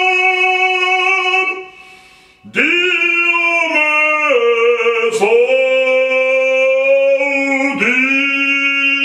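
A heavy male operatic voice singing full out in a small room. A held high note ends about a second and a half in and is followed by a short breath. Then comes a phrase of sustained notes that step downward, with another quick breath near the end before the next note starts.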